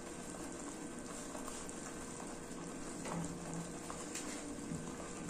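Chile negro sauce with onion simmering in a frying pan over a gas flame turned down low: a steady bubbling, with a few faint ticks.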